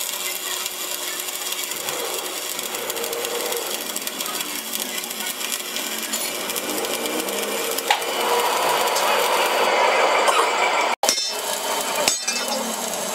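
Stick (arc) welding on a steel truck rim: the steady crackle of the electrode arc, louder from about eight seconds in, breaking off for an instant near eleven seconds.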